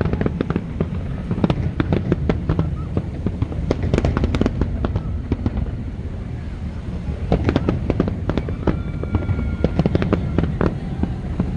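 Fireworks display: a rapid run of sharp bangs and crackles over a steady low rumble, thinning briefly about halfway through and then building again.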